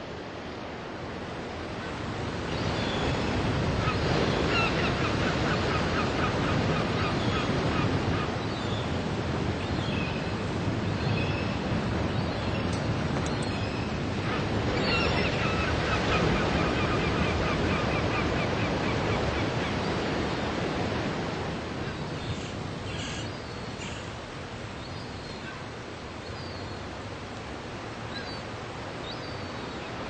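Ocean surf breaking and washing up a sandy beach: a continuous rushing wash that swells louder a couple of seconds in and eases off after about twenty seconds.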